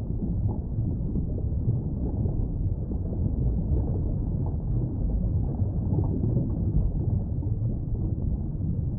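Steady, muffled low rumble of underwater ambient noise, with no distinct calls or clicks.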